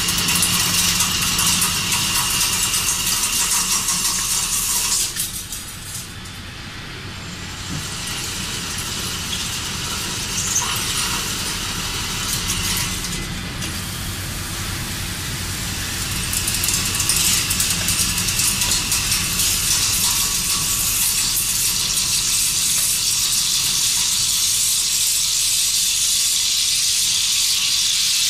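WFL M60 Millturn CNC machine cutting a rotating shaft under flood coolant: a steady hiss of coolant spray and cutting noise over a low machine hum. It eases for a couple of seconds about five seconds in, then builds and holds steady and loud from about sixteen seconds on.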